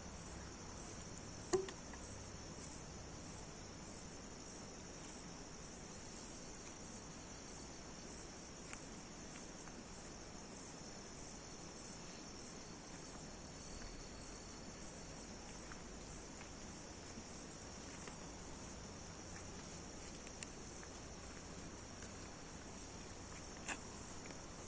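A steady, high-pitched chorus of insects, likely crickets, with one sharp knock about a second and a half in and a few faint clicks later.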